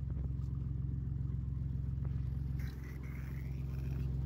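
Engine idling steadily with a low, even hum; its note drops slightly about two and a half seconds in, with a faint whine above it.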